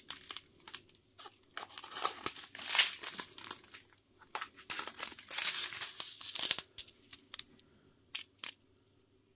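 Small plastic bags of diamond-painting drills crinkling and rustling as they are handled and one is pulled from the pile, in irregular bursts for about five seconds, then a few soft clicks near the end.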